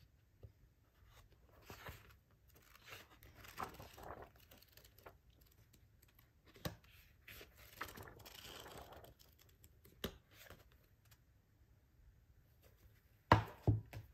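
Paper pages of a manga paperback rustling as they are turned, then riffled through in one quick fluttering run about eight seconds in. Near the end, two or three knocks, the loudest sounds, as the book is put down on a desk.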